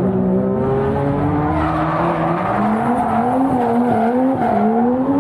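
Drift car's engine revving hard as the car slides sideways through a corner, its pitch wavering up and down with the throttle and climbing again near the end, with tyres squealing.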